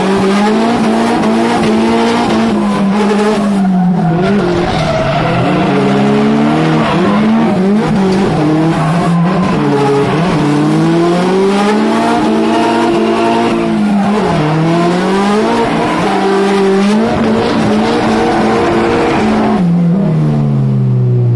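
Drift car engine, heard from inside the cabin, revving up and down over and over through a tandem drift, with tyre squeal. Near the end the revs fall away.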